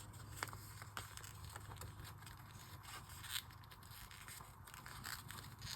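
Faint rustling and light clicks of paper and stickers being handled on a journal page, with a single small tap about half a second in and another about three and a half seconds in.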